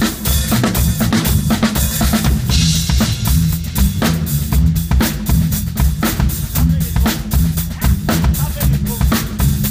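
Drum kit playing a steady, busy rock beat with a heavy low end of kick drum and snare hits, as loud music.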